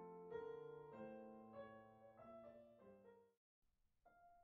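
Quiet solo piano music, its notes fading lower until it cuts to total silence about three and a half seconds in; piano music starts again just before the end.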